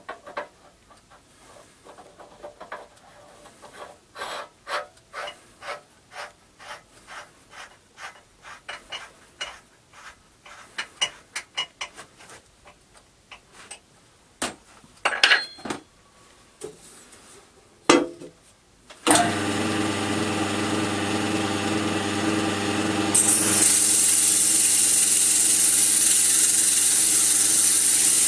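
Small metal clicks and knocks, about one a second, as a cast-iron backplate is turned by hand onto a wood lathe's spindle. About two-thirds through, the wood lathe switches on and runs with a steady hum. Some four seconds later a sanding sponge is held against the spinning cast-iron backplate, adding a steady rubbing hiss.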